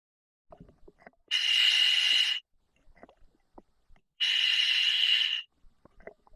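Scuba regulator hissing twice as a diver breathes in through an OTS Guardian full face mask, each breath lasting about a second and about three seconds apart.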